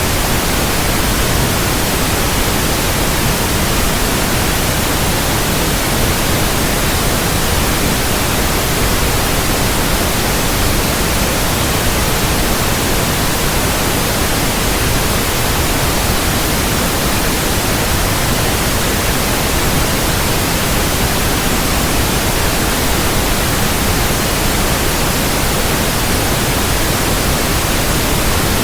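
Steady, unbroken white noise, an even hiss across all pitches, played as a sleep aid for infants.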